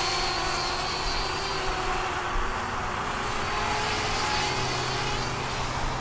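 Parrot Bebop quadcopter's propellers buzzing steadily in flight, a constant whine made of several held tones; the pitch shifts slightly about four and a half seconds in.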